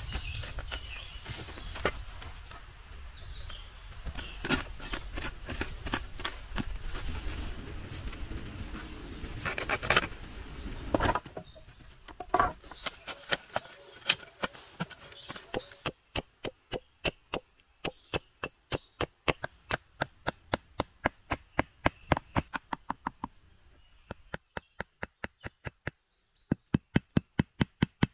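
Rustling and scattered cracks, then a long run of sharp, even chopping strikes on wood with a hand tool, about three a second, pausing briefly near the end and resuming a little faster.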